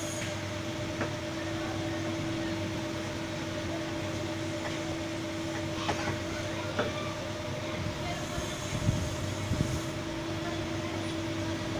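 12-volt DC worm pump running steadily off a battery: a constant motor hum with a steady whine, and a few light knocks in the second half.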